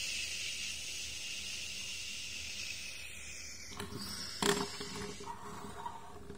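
A jet-like hiss for a toy airliner coming in to land, fading away over the first three or four seconds. Then a few light knocks as the plastic plane sets down on the tabletop and rolls along.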